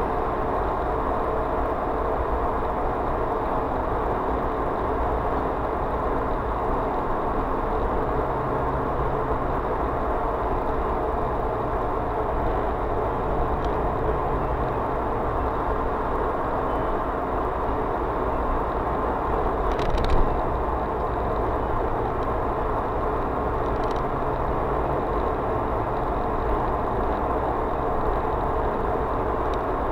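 Steady road and engine noise of a vehicle driving at speed on an open road, heard from inside the cabin, with a brief knock about two-thirds of the way through.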